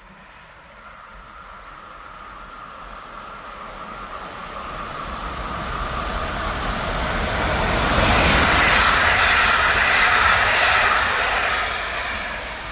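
Locomotive-hauled passenger train approaching and passing close by, growing steadily louder to a loud rush of wheels on rails about eight seconds in, then starting to fade as the coaches go past. A thin high whine rides above it as it approaches.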